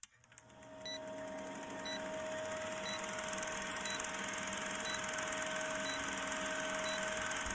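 Old-film countdown sound effect: a film projector's steady whir and hiss fading in, with a short high beep once a second, seven beeps in all.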